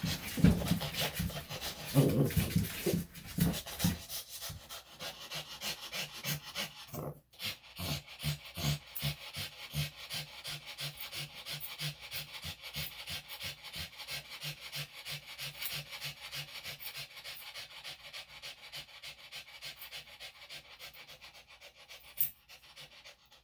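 Small Maltese–Shih Tzu dog panting in quick, even breaths, about two to three a second. Louder, irregular rustling in the first few seconds.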